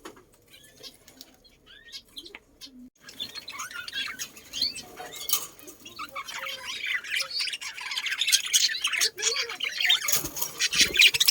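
A flock of small birds chirping and chattering together: a few scattered chirps at first, then about three seconds in a dense, busy chorus that grows louder.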